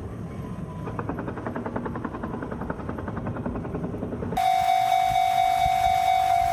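A low rumble with a fast, even clicking, then an abrupt change to a railroad crossing warning bell ringing: a steady single-pitched electronic tone pulsing about twice a second.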